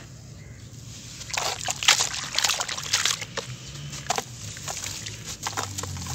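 Wet sand-and-cement block being crumbled by hand into a basin of water: irregular splashing and sloshing with gritty clumps dropping in, starting about a second in.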